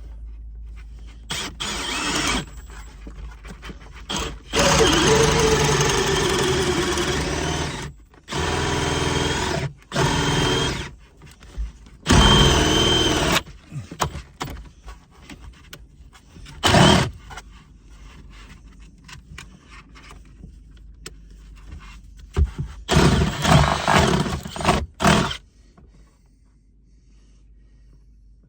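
Cordless drill run in about seven separate bursts, from under a second to about three seconds each, its motor whine shifting in pitch as the trigger and load change.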